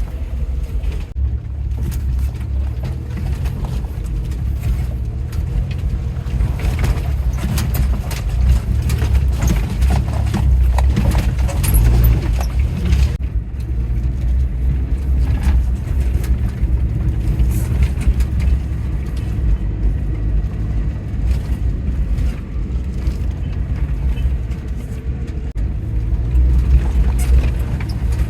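A vehicle running: a steady low rumble with scattered knocks and rattles.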